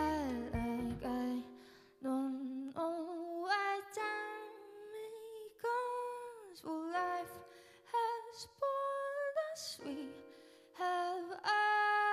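Female jazz vocalist singing slow phrases that slide up and down in pitch, with quiet keyboard accompaniment holding a note underneath. Double bass notes sound at the start and stop about a second and a half in.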